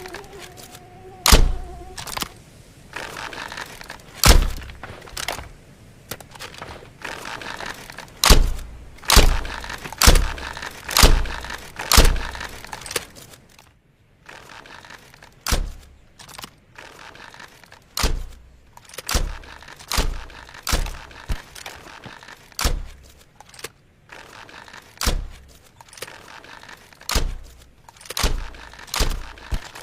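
Bow-and-arrow sound effects: a series of about twenty sharp thunks, irregularly spaced and often about a second apart, with a fainter rushing sound between some of them.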